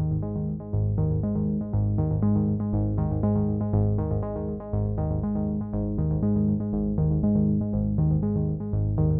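Background music: synthesizer and electric-piano notes over a steady beat.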